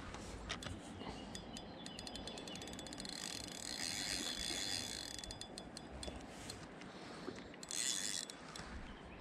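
Korum Neoteric FS 5000 free-spool spinning reel clicking rapidly and evenly for several seconds as the feeder rod is handled. A brief hiss follows near the end.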